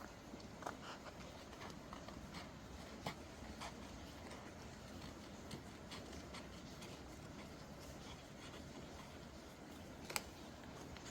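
Paper being handled and shuffled: scattered light rustles and small taps, with one sharper click about ten seconds in. Underneath is a faint, steady hiss of rain.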